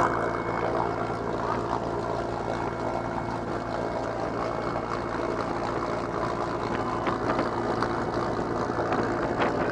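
Aircraft engine drone heard from inside the cabin at the open jump door, steady and unchanging, mixed with the rush of air past the doorway. A few faint clicks or knocks come near the end.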